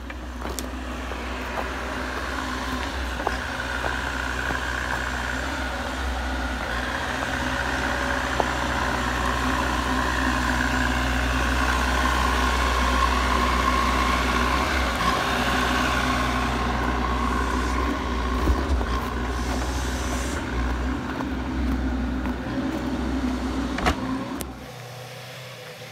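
Bobcat compact excavator's diesel engine running steadily while it digs out a creek bed, growing louder and then stopping abruptly near the end.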